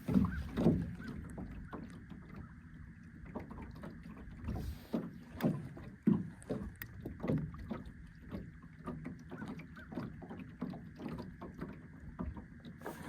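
Small wind-driven waves slapping against the fishing boat's hull, giving irregular knocks and thumps over a low rumble.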